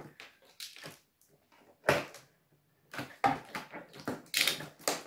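Plastic foam-dart blaster parts and packaging handled in a cardboard box: a run of scattered clicks, knocks and rustles, the sharpest knock about two seconds in and a brief rustle near the end.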